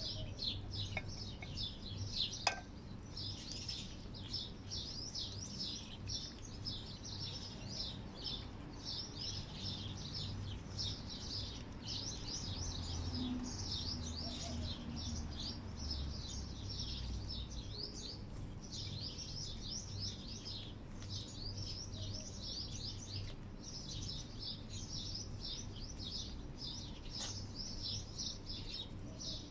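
Many small birds chirping in a continuous chatter, several short calls a second throughout, over a low steady hum. A single sharp click sounds about two and a half seconds in.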